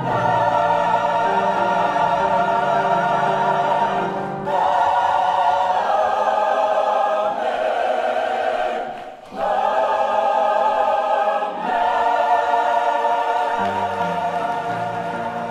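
Large mixed choir singing held chords under a conductor, in phrases with short breaks between them about four, nine and eleven and a half seconds in.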